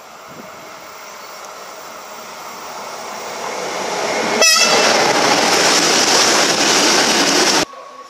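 Freight train with a locomotive approaching, growing steadily louder, then passing close by with a loud rush of wheels on rail, with a short horn toot as the locomotive draws level. The sound cuts off suddenly near the end.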